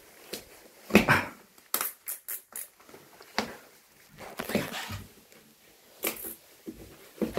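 Irregular knocks, rustles and shuffles of someone moving about a small tiled entryway, handling the phone and the shoes on the floor, with a few sharper clicks and thuds.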